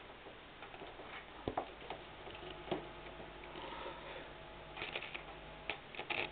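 Vega 300 Stereo record player's tonearm and stylus: faint, irregular clicks and crackle as the needle is set down on the turntable, with a low hum underneath. The stereo needle is one the owner says needs replacing.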